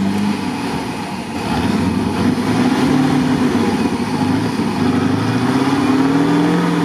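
Off-road vehicle engine revving, its pitch rising and falling several times and climbing again near the end.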